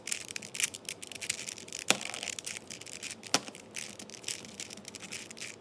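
4x4 Rubik's cube being turned by hand: quick plastic clicking and rattling of the layers as they rotate, with two sharper clicks about two and three and a half seconds in.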